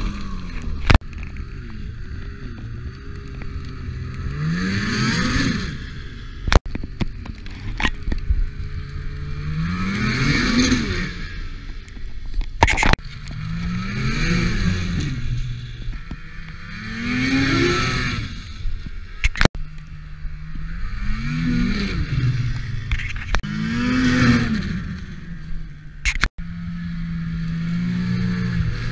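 Snowmobile engine revving up and easing off again and again as the sled rides past, its pitch climbing and falling each pass. Abrupt cuts between clips break the sound several times.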